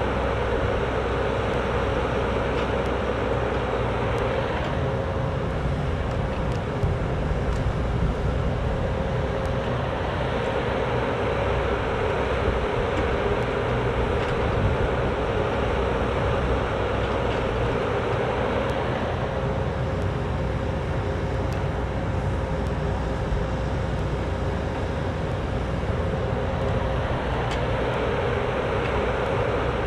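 Cat 304D mini excavator's diesel engine running steadily as the boom and bucket work, with a steady whine over the engine note.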